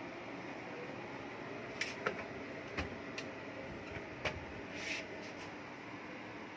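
A steady fan hum from a preheating electric wall oven, with several sharp clicks and knocks as the oven door is pulled open, the loudest about four seconds in, and a short rustle just after.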